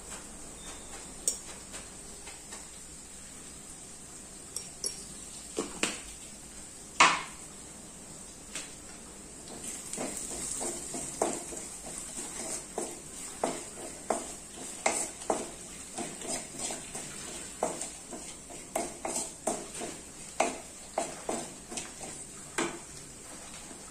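A steel spoon clinking a few times against a metal kadai, one clink much louder than the rest, then a wooden spatula stirring and scraping onions and masala powder around the pan in strokes about twice a second, over a faint sizzle of frying.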